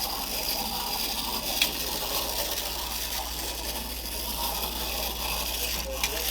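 Clockwork motor of a 1950s TPS tin litho windup clown roller-skater running as the toy skates about, a steady whirr. A single sharp click comes about a second and a half in.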